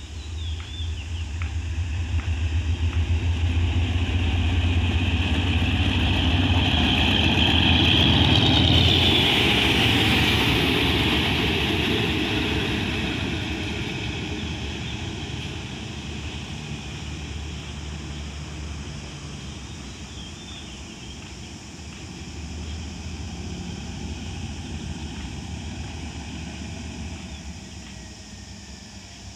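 Hitachi HID diesel-electric locomotive running light past the listener. Its engine drone grows louder as it approaches and is loudest about nine seconds in, with a rush of wheel noise as it passes. The pitch then drops and the engine fades away as it moves off.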